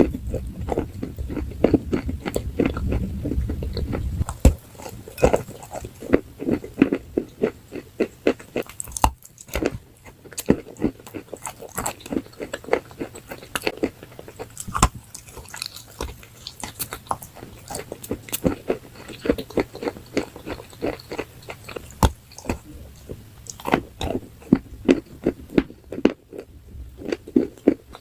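A person biting and chewing crunchy food close to the microphone, with many irregular sharp crunches. A low hum under the first few seconds stops about four and a half seconds in.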